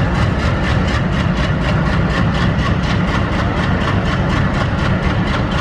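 Twin ALCo diesel locomotives running loud and steady with a fast, even beat, hauling a passenger train.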